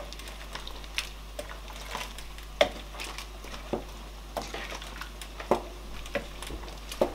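Wooden spoon stirring a pot of soup with chunks of goat meat, the spoon knocking and scraping irregularly against the pot, loudest about two and a half and five and a half seconds in and again near the end.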